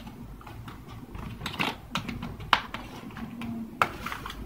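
A small cardboard box of paints being opened and handled by hand: an irregular run of light clicks and rustles of cardboard and packaging, with a few sharper snaps.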